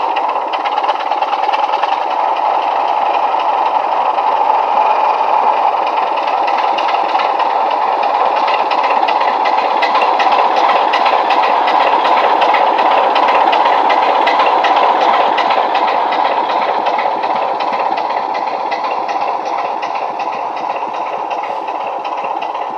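Heljan OO gauge Class 27 model's ESU LokSound 5 decoder playing Legomanbiffo's recorded Class 27 Sulzer six-cylinder diesel sound through the model's small speaker as the locomotive pulls away. The engine sound grows louder to a peak about halfway through, then fades toward the end as the model moves away.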